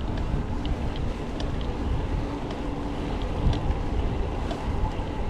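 Wind buffeting the microphone while riding a road bike, with a fluctuating low rumble of wind and tyres on the paved path and a few faint light ticks.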